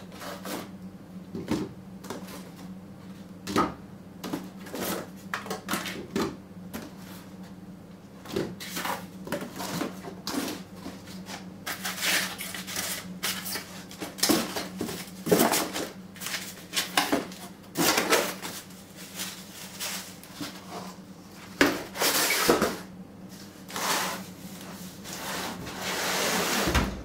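Hands handling small replacement UPS batteries and their cardboard box: irregular knocks and clicks, with cardboard rustling and scraping that grow busier in the second half and a longer scrape near the end. A steady low hum runs underneath.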